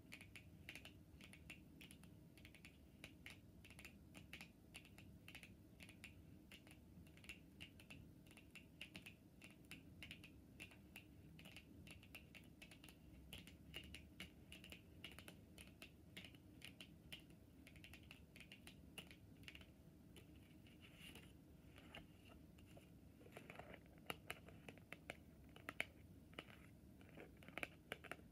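Long natural fingernails tapping on tarot cards: a quick, soft run of small clicks like light typing. About three-quarters of the way through, the taps become louder and more spaced out.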